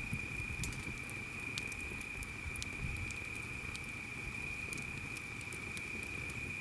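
Campfire of burning wood crackling, with scattered sharp snaps over a low rumble of flames. A steady high-pitched tone runs underneath.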